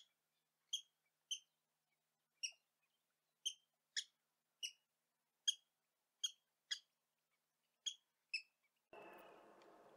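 Short, sharp bird call notes, about a dozen of them, repeated irregularly every half second to a second. Just before the end they stop and a steady outdoor background noise begins.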